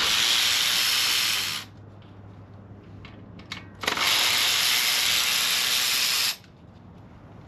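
Two loud hissing blasts of pressurized gas or spray, each about two seconds long, switching on and off sharply with a short pause between them.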